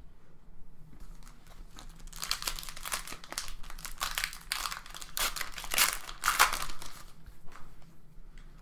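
A trading-card pack wrapper being torn open and crinkled by hand, a run of dense crackling that builds about two seconds in and dies down near the end.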